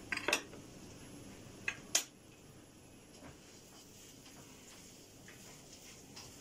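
A few short, light clicks: a quick cluster right at the start and two more about two seconds in, over faint room tone.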